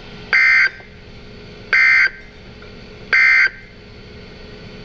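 Emergency Alert System SAME data tones: three short, identical bursts of buzzy digital warble, about a second and a half apart, over a faint steady hiss. This is the end-of-message code that closes an EAS warning.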